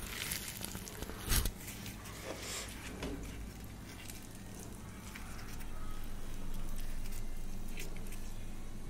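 Close-miked eating: chewing a bite of puffed, deep-fried luchi (puri), with a sharp crisp crackle about a second and a half in, then softer tearing and squishing as luchi is dipped into paneer gravy. A low steady hum runs underneath.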